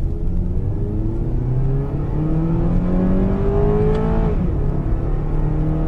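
Honda Civic 2.0 four-cylinder engine, heard from inside the cabin, at full throttle in a standing-start 0–100 km/h run. The revs climb, drop at an upshift made with the paddle shifters about four seconds in, then climb again.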